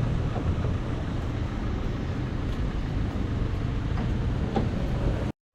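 Tram running along its rails: a steady low rumble with a few faint clicks, cutting off abruptly near the end.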